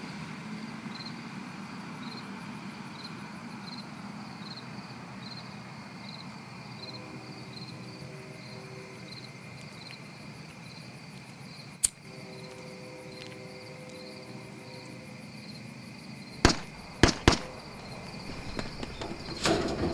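Night ambience with crickets chirping about twice a second and soft sustained tones, broken by a single sharp crack about twelve seconds in. Then three gunshots come in quick succession, the loudest sounds, from the shooting at the poker game.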